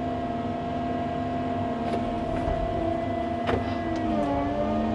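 Tracked excavator's diesel engine running steadily while it works, with a sharp metal clank about three and a half seconds in and a brief dip in engine pitch soon after as the hydraulics take a load.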